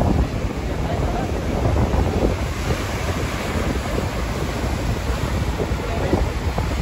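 Wind buffeting the microphone in uneven low rumbles over a steady rushing noise.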